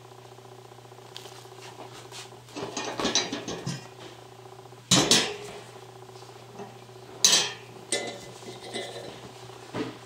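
Thin metal wire birdcage lanterns clinking and rattling as they are handled and the domed top is lifted: a run of light rattles about three seconds in and two louder metal clanks around five and seven seconds in, over a low steady hum.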